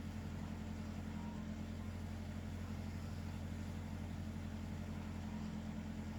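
Steady low hum with no rise and fall, like a fan or appliance running in a room; no snoring stands out.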